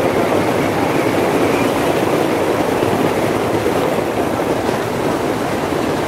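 A diesel-hauled passenger train rolling slowly across a sea bridge, its locomotive and wheels blended into a steady rush of wind and surf noise.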